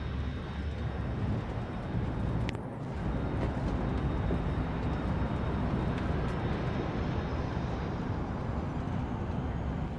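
Steady low rumble of outdoor background noise with no clear single source, with a faint click about two and a half seconds in.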